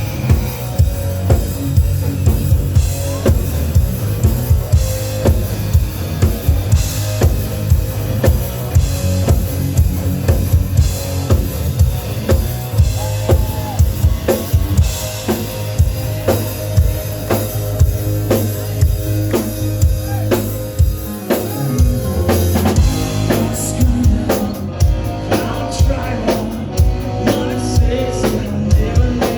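Music driven by a steady drum-kit beat, with bass drum and snare.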